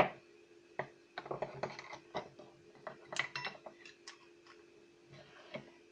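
Irregular clicks and short scrapes of a steel drill bit being worked by hand into thin aluminium angle on a wooden block, with a sharp click at the very start. A faint steady hum runs underneath.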